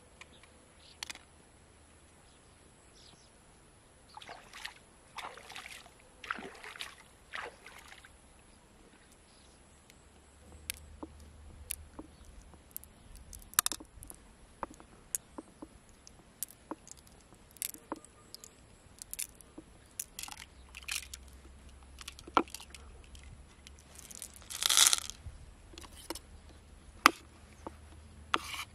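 A knife and fingers working in an opened freshwater mussel: scattered sharp clicks and taps of the blade and pearls against the shell, with wet squishing and a few longer scraping sounds, the loudest scrape near the end.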